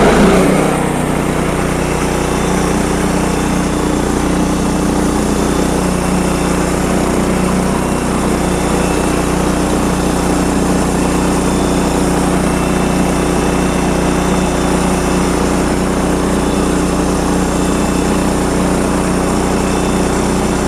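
Sawmill engine running steadily under throttle after coming up to speed at the very start, with a constant mechanical drone and no change in pitch.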